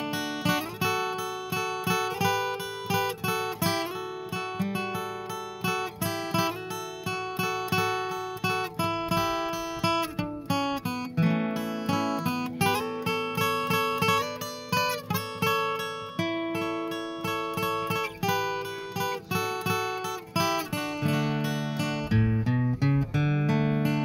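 Background music: acoustic guitar playing a steady stream of plucked and strummed notes and chords.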